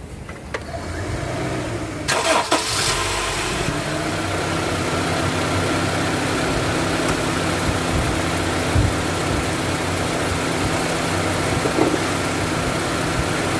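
Honda CR-V four-cylinder engine being started: the starter cranks it about two seconds in, it catches, and it settles into a steady idle. It is running smoothly on a newly replaced number 2 ignition coil, the misfire cured.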